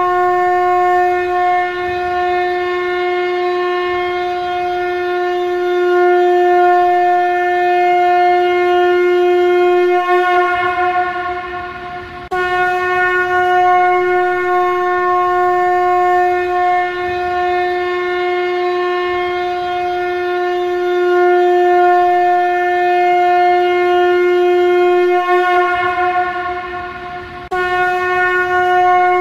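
Shankha, a conch shell trumpet, blown in long steady blasts on one held low note, each lasting over ten seconds. A blast tails off about ten seconds in, the next starts abruptly a couple of seconds later, and another starts near the end.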